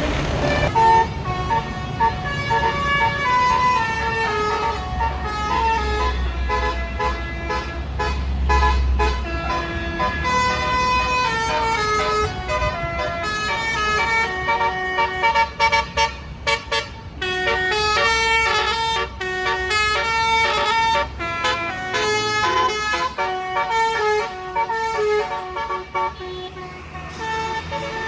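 Tour bus 'basuri' telolet horn playing a melody of stepping notes, with fast runs of short repeated notes in the middle part. A low engine rumble joins it for a few seconds near the start.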